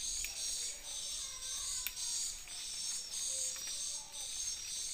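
Steady, high-pitched insect chorus, pulsing with short rising sweeps over and over, with a sharp click about two seconds in.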